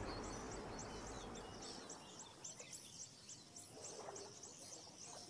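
Faint wild-country ambience: rushing river water fades out over the first two seconds, then a steady run of quick, high chirps repeats about four times a second.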